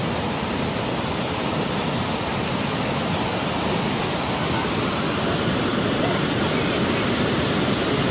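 Steady rushing noise of tsunami seawater surging and breaking, growing slightly louder.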